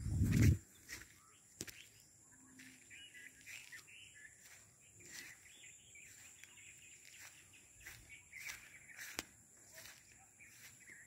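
Birds chirping and calling in short scattered notes in the background. A brief low rumble of wind or handling on the microphone in the first half second is the loudest sound.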